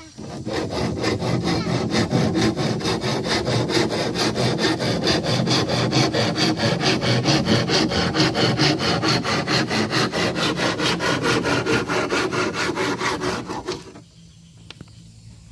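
Handsaw cutting through a wooden rib of a wooden boat hull in rapid, even back-and-forth strokes; the sawing stops about a second and a half before the end.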